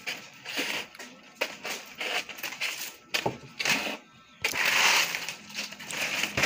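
Nipa palm leaves rustling and crackling as they are handled and folded into a pawid thatch shingle, in many short irregular strokes. A longer, louder rustle comes about two-thirds of the way in as the leaf sheet is shifted.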